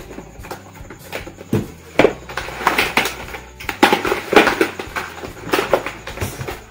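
A large plastic water jug holding grasshoppers is opened and tilted about: irregular crackling of the thin plastic with clicks and knocks, busiest in the middle.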